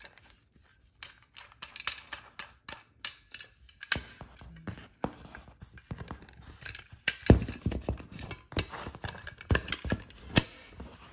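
Carbon-steel folding trench shovel being folded up by hand: its hinged blade and handle rattle and clack, with many sharp metal clicks and knocks, the loudest a little past halfway and again near the end.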